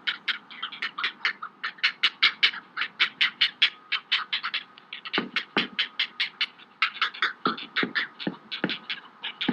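Great blue heron chicks begging at the nest: a rapid, steady string of dry clacking calls, about eight a second, with a few low thumps in the second half.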